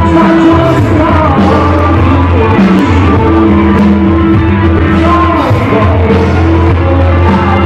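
Live rock band playing loudly with a singer, heard from within the concert crowd.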